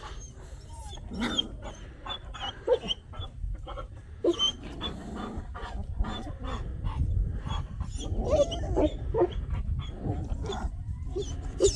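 Young puppies whimpering and yipping while they wrestle: many short, high squeaks and a few lower whines come at irregular intervals, with small clicks between them.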